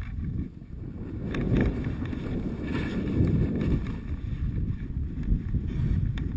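Rumbling scrape of a downhill rider sliding fast over snow, mixed with wind buffeting the microphone. It grows loud just after the start and swells and eases several times as the rider turns between trees.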